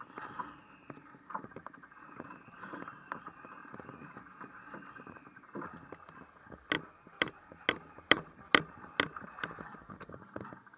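Water splashing and rushing along the hull of a small radio-controlled sailing yacht heeled over in choppy water, heard from a camera on its deck. About two-thirds of the way through comes a run of about seven sharp knocks, roughly two a second, louder than the water.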